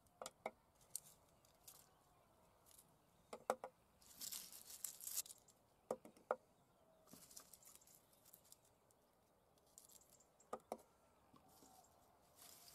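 Garlic cloves being peeled by hand: brief crackling rustles of the papery skins, with a few soft clicks and taps as cloves are broken off and dropped into a pot of olive oil.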